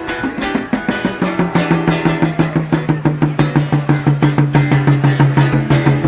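Live folk-rock instrumental break with no singing: acoustic guitar and hand percussion keeping a fast, even beat at about six strokes a second, over a held low note that comes in about a second and a half in.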